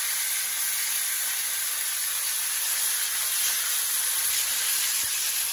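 Ribeye steaks sizzling in a frying pan of hot melted butter with garlic and rosemary: a steady, even high hiss.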